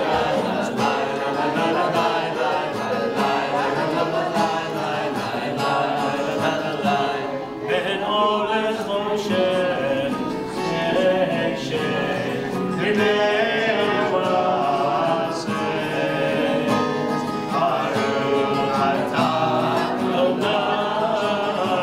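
A group of people singing a Havdalah song together.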